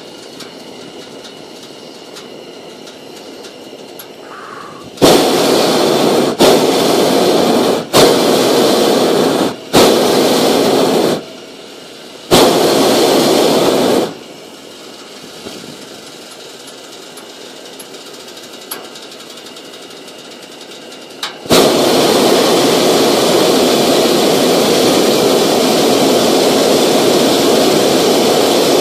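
Hot-air balloon's propane burner firing: five loud blasts of a second or two, each starting and stopping abruptly, then one long steady burn from about two-thirds of the way in.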